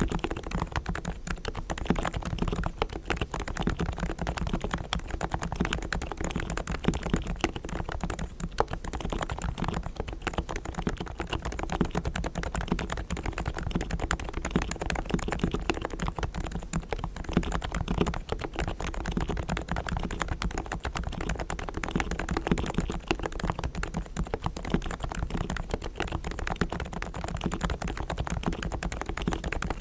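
Rapid, continuous typing on a Realforce R3 tenkeyless keyboard with silent 45g Topre electrostatic capacitive switches. The sliders, springs and stabilisers are fully lubricated and the case is foam-dampened.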